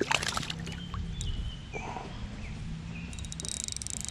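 A small bass being fought on rod and reel beside a kayak: water splashing and clicks at the start, scattered ticks, then a quick run of rapid clicks about three seconds in.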